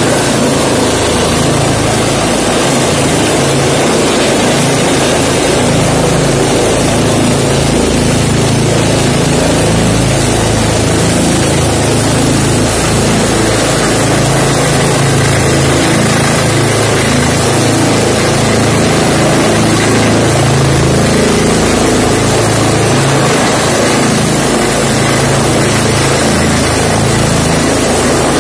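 Rescue helicopter hovering close overhead: loud, unbroken rotor and turbine noise with a low throb.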